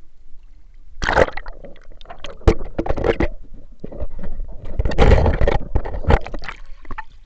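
Water splashing and sloshing close to a camera dipped in and out of a small blue paddling pool. The sound comes in irregular bursts, loudest about five seconds in, with sharp knocks from the camera being handled.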